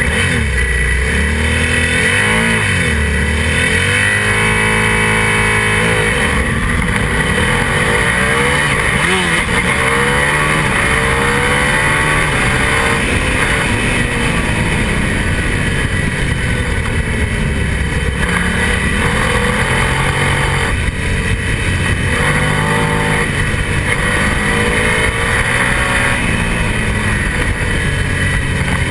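Onboard sound of a twin-cylinder superbike racing motorcycle pulling away from a race start and accelerating hard through the gears, its engine pitch climbing and then dropping back at each upshift, with wind rushing over the camera and other racing bikes around it.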